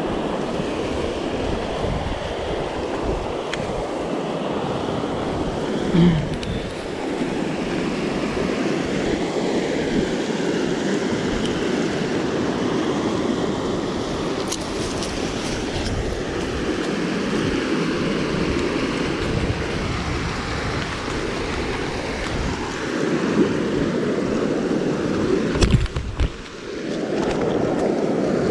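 Steady rushing of a fast-flowing river over rapids, with wind buffeting the microphone. There is a brief bump about six seconds in and a couple of short knocks near the end.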